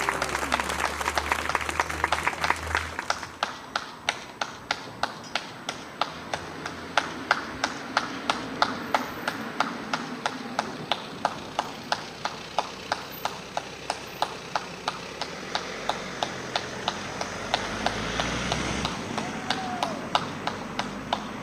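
Hands clapping in a steady, evenly spaced beat of sharp claps, several every couple of seconds. A wider spread of applause from many people dies away over the first few seconds.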